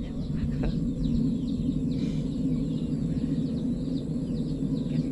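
Birds chirping: many short, falling calls repeating several times a second, over a steady low rumble.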